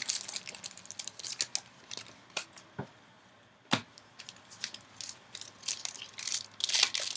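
Yu-Gi-Oh trading cards and a foil booster pack being handled: scattered light clicks and rustles, a brief lull about three seconds in ended by one sharp snap, then steady foil crinkling near the end.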